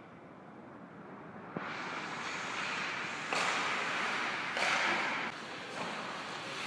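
Ice hockey skates carving and scraping on the rink ice, a hiss that swells sharply about three and a half and four and a half seconds in, with a light click about a second and a half in.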